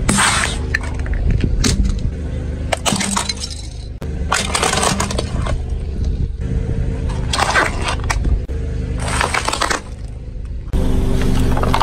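Car tyre rolling over brittle objects on asphalt and crushing them: a string of crunching, cracking breaks, about six, each a second or two apart, over a steady low hum.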